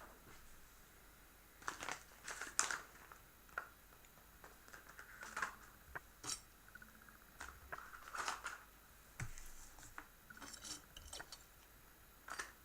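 Faint, scattered clicks and crinkly rustles of small objects being handled on a table.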